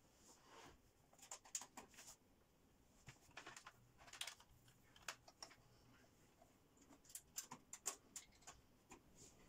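Faint scattered clicks and rustles of USB cables being handled and plugged in, the cables dragging and tapping on a wooden desk, coming in short clusters.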